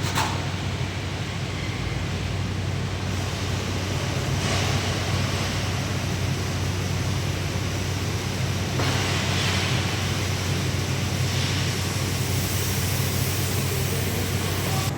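Car engine running at idle, a steady low drone, with a few stretches of stronger rushing noise over it.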